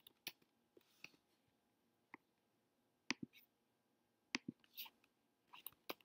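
Faint, sharp clicks of computer input from a mouse and keyboard at work, scattered unevenly over near silence.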